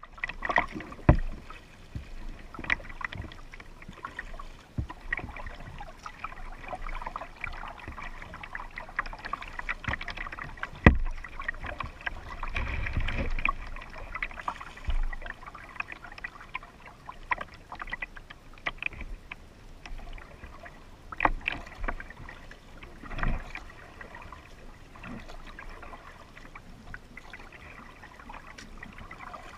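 Kayak paddling: a double-bladed paddle dipping and splashing in lake water beside the hull, in an irregular run of strokes and water noise. A few sharp knocks stand out, the loudest about a second in and about eleven seconds in.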